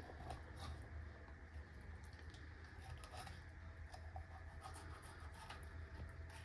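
Faint scraping and slicing of a filleting knife freeing a sea bass fillet from the backbone: a scatter of small scratches and ticks over a steady low hum.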